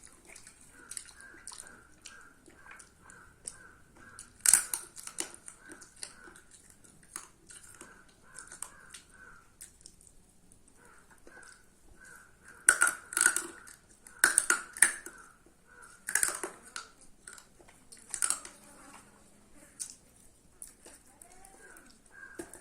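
Close-up eating sounds: chewing with wet mouth smacks and sharp clicks, of a man eating chicken curry and rice. The louder smacks come in clusters about a fifth of the way in and again past the middle.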